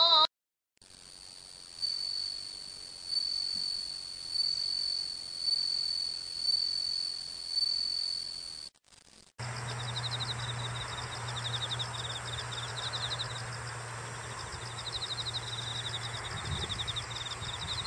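Insects trilling outdoors: a steady, high, pulsing trill for the first several seconds. After a cut about nine seconds in, a different insect chorus of rapid, high pulsed chirps takes over, with a steady low hum beneath it.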